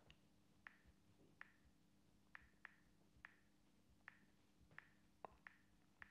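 Faint, short clicks at an irregular pace, about eleven of them, as a password is typed on a smartphone touchscreen keyboard.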